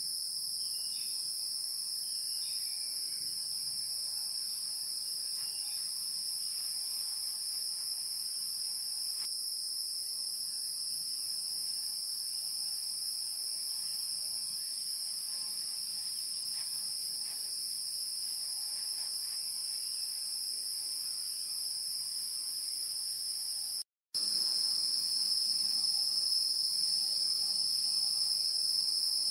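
Steady shrill insect chorus, a continuous high-pitched drone at two pitches. Late on it cuts out for an instant and then resumes slightly louder.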